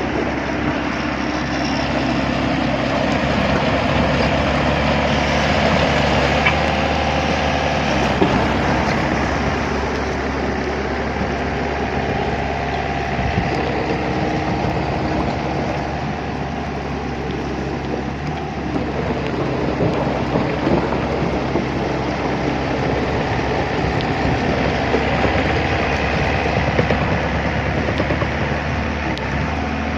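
A vehicle engine running steadily with a constant low hum.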